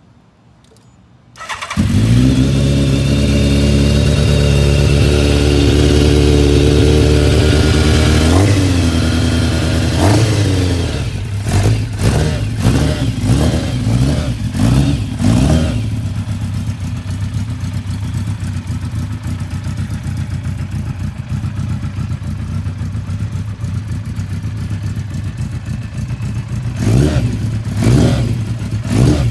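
A 1987 Yamaha FZR1000's inline-four engine cold-started: after about a second and a half of quiet it catches and settles into a steady idle. From about eight seconds in it is blipped several times in quick succession, then settles to a lower steady idle, with a few more throttle blips near the end.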